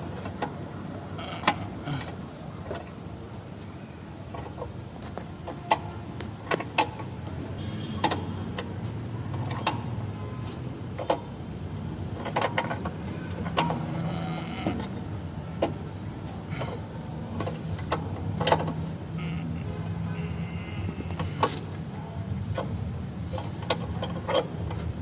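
Irregular metallic clicks and clinks of hand tools as a puller's screw is turned to draw an A/C compressor pulley and its worn bearing off the shaft, over a steady low hum.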